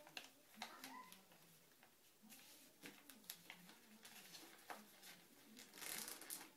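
Faint paper handling: a folded sheet of paper rustling and tapping as it is creased and pressed flat on a wooden tabletop, with a longer, louder rustle about six seconds in.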